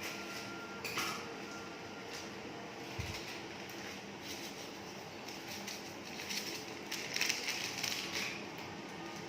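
A cooking utensil clinking and scraping against a pot of opor ayam: a few sharp clicks, then a longer stretch of scraping near the end.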